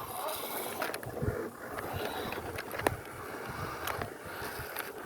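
Toy-grade RC car's small electric motor running as its wheels churn over loose ground, with scattered clicks and one sharper click about three seconds in.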